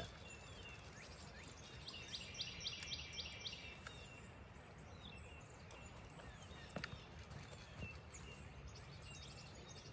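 Faint outdoor ambience with a low steady background and birds calling, including a quick run of about six high notes about two seconds in; a single sharp click near the end.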